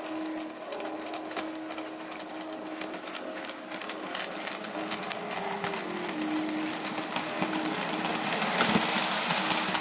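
N scale model train running along the track, its wheels making a rapid, uneven clicking over the rail joints that grows louder toward the end.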